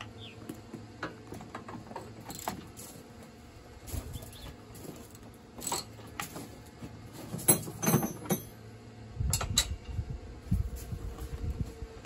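Scattered light metal clicks and clinks of a wrench working bolts on a utility vehicle's frame, with a louder cluster of knocks about two-thirds of the way through. Wind rumbles on the microphone in the last few seconds.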